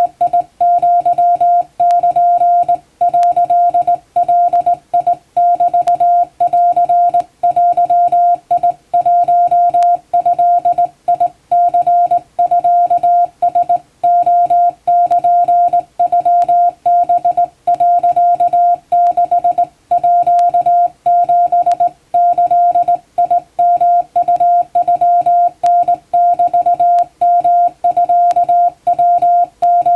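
Hand-keyed Japanese (wabun) Morse code: a single steady beep tone switched on and off in dots and dashes, with short silent gaps between characters.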